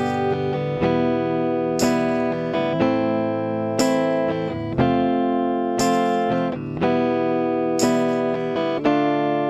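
Guitar strumming the chords of a Thai pop song with no singing. A strong strum comes about every two seconds with a lighter one in between, and the chords ring on between strums.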